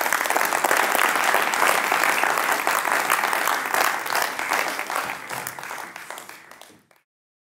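Audience applauding, dense clapping that thins out and then cuts off about seven seconds in.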